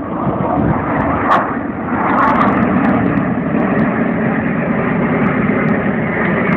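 Jet engines of the Boeing 747 Shuttle Carrier Aircraft carrying Space Shuttle Endeavour as it flies past: a loud, steady rumble that swells about two seconds in and then holds.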